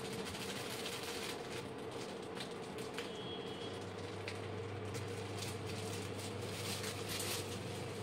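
Spoon stirring curd and buckwheat flour together in a bowl for kadhi batter, giving faint irregular scraping. A steady low hum runs underneath.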